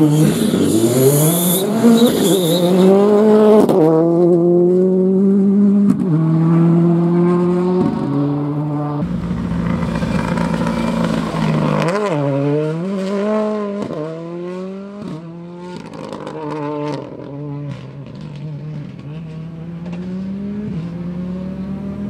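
Ford Fiesta rally car engine at full throttle, revving hard and climbing through several quick upshifts, with a brief tyre squeal near the start. About halfway through, the revs drop and the engine pulls hard through the gears again, growing fainter as the car drives away.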